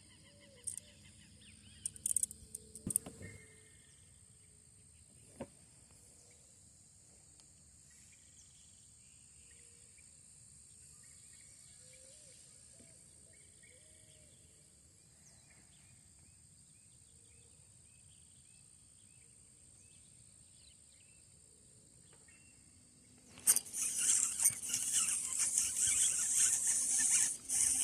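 Steady high insect buzzing with scattered bird chirps over quiet surroundings, a few sharp clicks in the first three seconds. About 23 seconds in, a sudden loud splashing of water begins and continues, a small traíra thrashing at the surface on the line.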